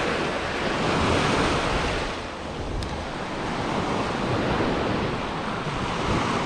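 Small surf waves washing up and draining off a sandy beach, with wind buffeting the microphone. The wash swells about a second in, eases off briefly, then builds again.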